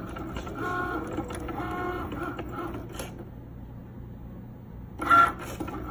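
Cricut cutting machine at work cutting vinyl: its motors whine in short runs of a steady tone, stopping and starting as the carriage moves. It goes quieter past the middle, and there is a louder burst near the end.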